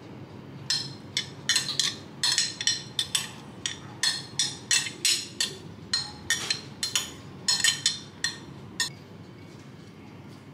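Metal spoon clinking and scraping against a glass food container as food is scooped out: a quick, irregular series of sharp clinks that stops near the end.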